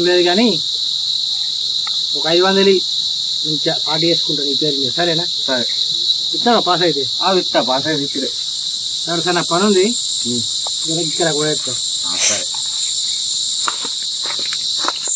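A continuous shrill drone of insects calling in two high steady bands. The higher band grows louder about eight seconds in.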